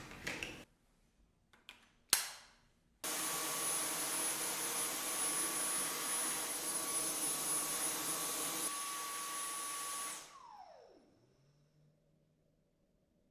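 Dyson V10 cordless vacuum: a few sharp clicks, then the motor starts abruptly about three seconds in and runs steadily with a high whine. Near the end it is switched off and spins down, its whine falling in pitch until it stops.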